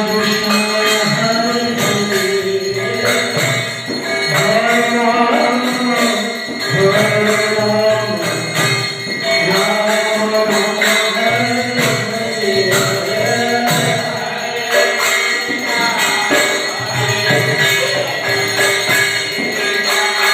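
Devotional song: a voice singing a winding melody over steady jingling percussion and a held background tone.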